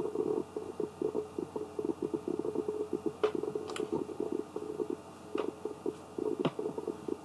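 A low, irregular crackling rumble throughout, with four sharp computer-mouse clicks in the second half.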